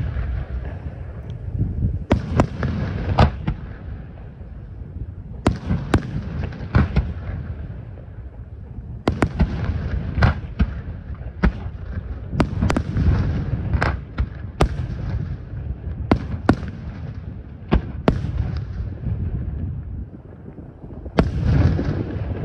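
Display fireworks: aerial shells bursting in a run of sharp bangs at irregular intervals, some in quick clusters, each followed by a low rolling rumble.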